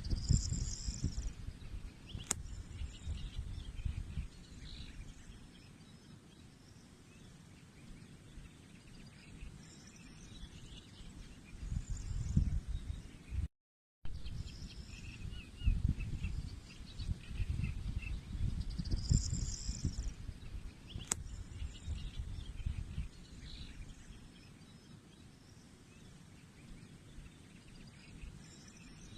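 Outdoor nature ambience: birds chirping now and then over a low, gusting rumble. A sharp click comes about two seconds in, and the sound cuts out briefly just before the middle, after which the same stretch repeats.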